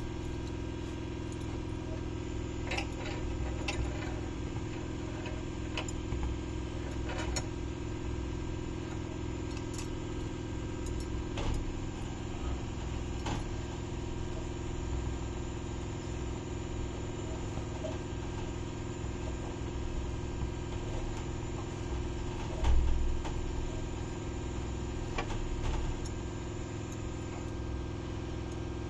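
Steady low hum of a lit gas stove burner as a bajra roti is roasted straight over its flame, with scattered light clicks of metal tongs and a knife against the roti and the burner grate. A dull bump about 23 seconds in.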